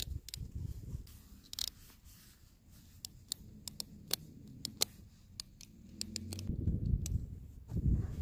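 Snowshoe binding straps and buckles being fastened on boots: scattered irregular clicks and scrapes of plastic and metal. A low rumbling rises after about six seconds.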